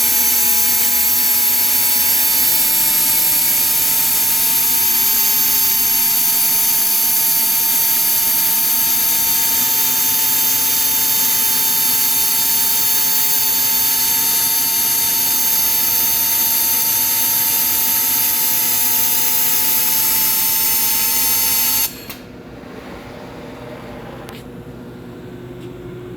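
Laser welding machine on an automatic straight-line welding table running a weld pass: a loud, steady hiss with a steady whine and high whistling tones, cutting off suddenly about 22 seconds in and leaving a quieter steady hum.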